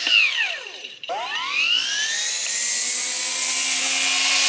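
Makita 18-volt cordless brush cutter with a metal blade: the electric motor's whine falls as the blade coasts down, almost stops about a second in, then rises again as the trigger is pulled and settles into a steady high whine at full speed.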